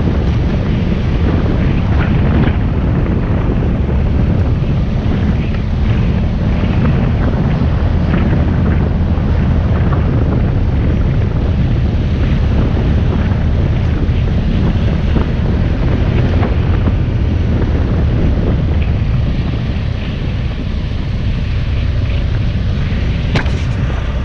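Wind buffeting the microphone over a BMW F800 motorcycle's parallel-twin engine running steadily while riding a dirt track, with scattered knocks and rattles from the rough surface.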